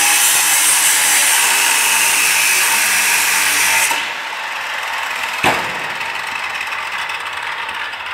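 Angle grinder with an abrasive disc grinding through the steel of a trailer frame, a loud harsh hiss. About four seconds in it drops sharply as the disc comes off the metal, leaving a quieter whir. A single sharp knock follows a second and a half later.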